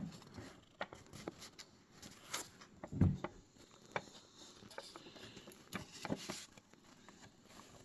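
Paper rustling and light clicks as a small folded newspaper-style paper insert is handled and held up, with a soft thump about three seconds in.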